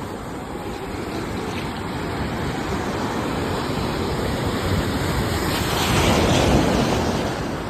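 Ocean surf: a steady wash of waves, swelling to a louder breaking wave about six seconds in, then easing.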